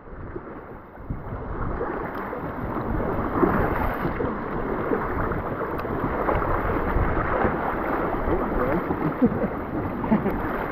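River water rushing and splashing around an inflatable raft, with wind buffeting the microphone. It is a steady, muffled wash with little treble that swells about a second in.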